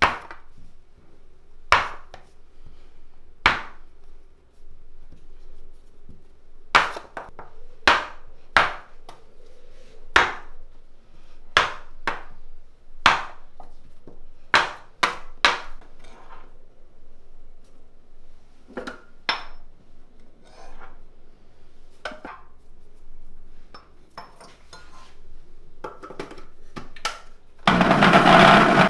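Metal bench scraper chopping cold butter cubes into flour, its blade knocking sharply on the countertop every second or two, the knocks fainter and sparser in the second half. About a second before the end, an electric mixer motor starts with a loud steady whirr.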